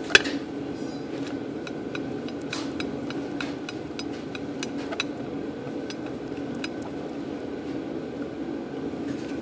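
Small metal clicks and ticks of a hand driver turning a stainless steel bolt into the motor cover of a Ford Model A ahooga horn, with one sharper click right at the start and light scattered clicks after it, over a steady low hum.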